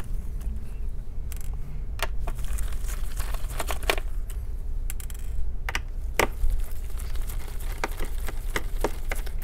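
Scattered light clicks and taps of small screws and gloved fingers on a laptop's bottom cover, irregular and a second or so apart, over a steady low hum.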